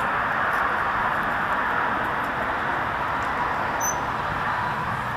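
Steady rushing outdoor background noise with no clear single source, ended by one sharp click right at the end as the shop's glass door shuts.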